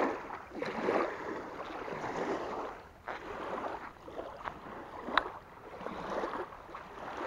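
Small waves lapping and washing onto a sandy shore in repeated swells, with one sharp click about five seconds in.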